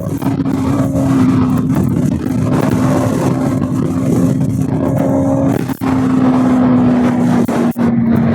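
Bajaj Pulsar NS200's single-cylinder engine through its stock exhaust, running at steady cruising revs while the bike is ridden, its note sagging slightly in pitch, over loud wind rush. The sound dips briefly twice near the end.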